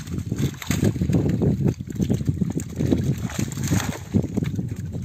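Netted carp thrashing and splashing in shallow water, a busy, irregular sloshing and spattering that runs on without let-up.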